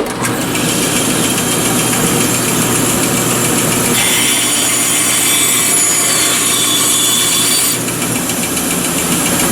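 Electric power saw running and cutting through a block of wood, with a steady motor hum. A harsher high whine comes in from about four seconds to about eight seconds in.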